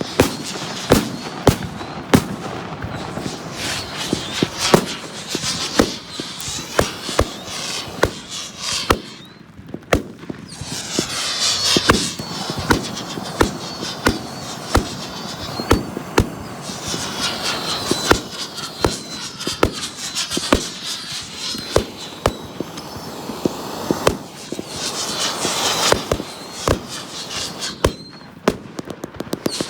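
Fireworks show going off: rapid, repeated sharp bangs of shells bursting, several a second, with stretches of high hissing and whistling between them.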